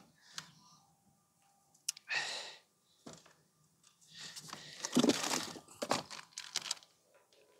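Handling noise: bursts of crinkling and rustling, like wrapping or a bag being handled, with a few sharp clicks; the longest stretch of rustling comes in the second half.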